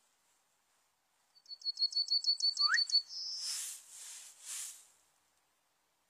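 Yellowhammer singing: a quick run of about ten short, even high notes, about six a second, ending in one longer drawn-out note. A few seconds of rushing, hiss-like noise follow.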